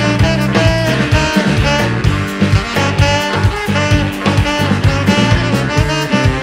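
Small band playing a swing-style jazz tune: saxophone lines over a stepping bass line and drums keeping a steady beat.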